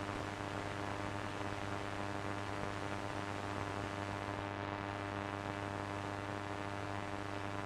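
Steady electrical hum with many overtones under a hiss of static, unchanging throughout: the dead-air buzz of a TV broadcast being interrupted.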